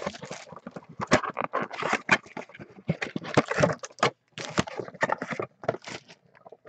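Cardboard Upper Deck hockey card boxes being handled on a table: irregular taps, knocks and scraping as the boxes are picked up, moved and set down, with a couple of short pauses.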